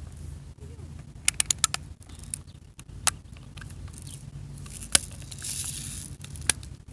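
Lever of a lever-action BB rifle being worked to cock and pump it: a quick run of sharp clicks about a second and a half in, then single clicks, a louder click about five seconds in followed by a brief hiss.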